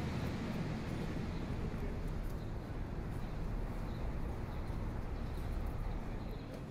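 City street background noise: a steady low rumble of traffic with a light hiss above it.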